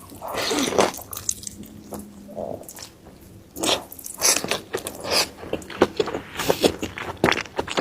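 A person eating close to the microphone: bites and wet chewing with clicks and smacks. A quieter lull falls about a second and a half in, and the chewing picks up again near the middle.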